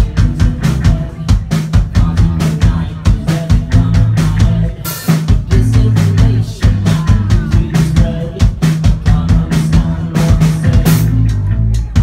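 A rock band playing live and loud: a drum kit hitting fast and hard over sustained low notes, with cymbal crashes about five and eleven seconds in.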